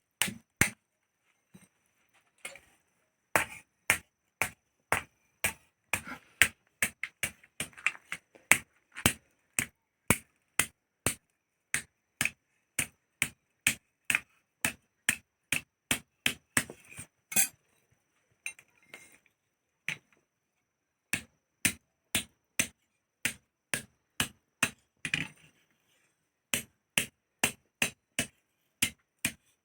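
Blacksmith's hand hammer striking metal on an anvil while forging a Naga dao, in a steady run of sharp blows about two a second, broken by a few short pauses.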